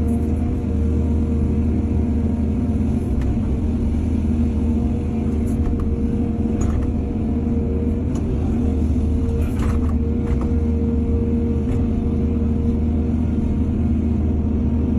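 Diesel engine of heavy earthmoving machinery running steadily, with a constant whine over the low engine note and a few light knocks near the middle.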